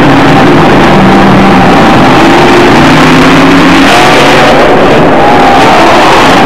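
Monster truck engine running loud at high revs, the note climbing about four seconds in as the truck accelerates.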